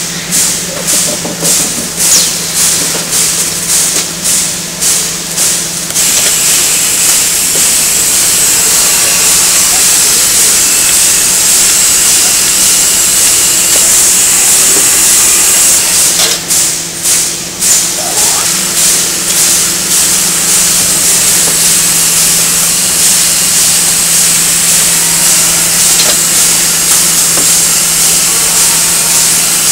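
Case-packing machinery on a bottle packaging line running: a loud, steady hiss over a low hum, with a rapid rhythmic pulsing for the first six seconds and again about sixteen seconds in.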